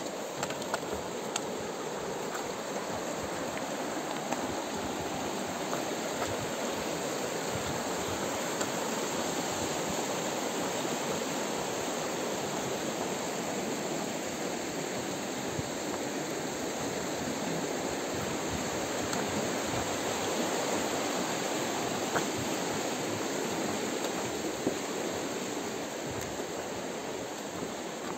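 Steady rush of a fast-flowing river running close below, with a few faint knocks of footsteps on the wooden boards of a footbridge.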